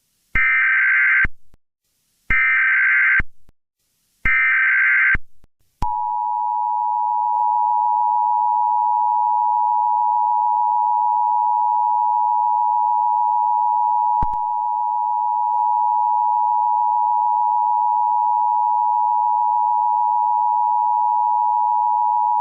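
Emergency Alert System tones announcing a tornado warning. First come three bursts of SAME header data, each a warbling digital squeal about a second long, two seconds apart. About six seconds in, the steady two-tone attention signal starts (853 and 960 Hz) and holds for the rest.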